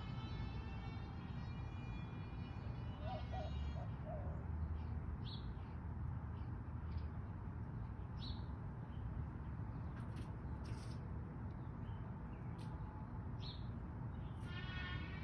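Birds calling outdoors: a drawn-out, many-overtoned call at the start, again about three seconds in and again near the end, with scattered short high chirps in between, over a steady low background rumble.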